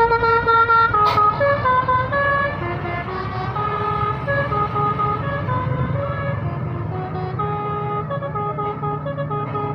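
Bus 'telolet basuri' multi-tone musical horn: one long held note, then from about a second in a quick tune of short stepped notes, over the low running of the bus engine.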